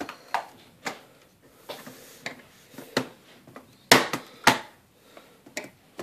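Small flathead screwdriver prying at the plastic keyboard tabs of a Dell Inspiron N5040 laptop: a series of irregular sharp plastic clicks, the loudest two about four seconds in.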